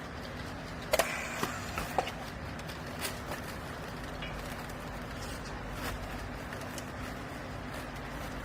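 Hydraulic textile baler's power unit running with a steady hum, with a few sharp knocks and clanks, the loudest about a second in.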